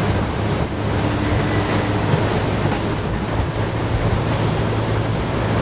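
Boat under way: its engine runs with a steady low hum, under a constant rush of wind over the microphone and water past the hull.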